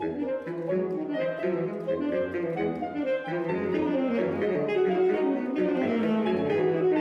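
Saxophone quartet of soprano, alto, tenor and baritone saxophones playing together: several overlapping melodic lines over a low baritone part, in a twelve-tone row.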